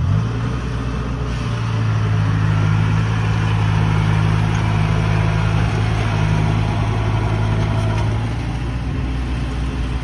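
A motor engine runs steadily at a constant speed: a loud low hum with a busy mechanical rushing noise above it, growing a little louder about a second in.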